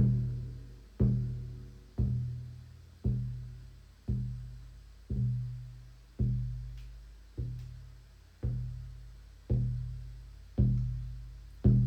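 Shamanic drum beaten in a slow, steady pulse of about one deep stroke a second, each stroke ringing out and fading before the next.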